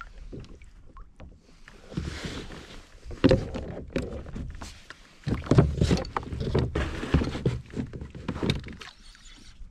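Irregular knocks, bumps and splashes on and around a sit-on-top fishing kayak as it is handled at sea, the louder clusters coming in the middle and near the end.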